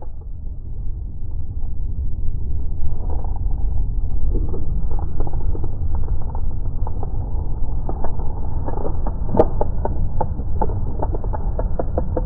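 Wind rumbling heavily on the microphone, muffled and unsteady. From about three seconds in, a run of irregular small clicks and knocks, the sharpest about nine seconds in.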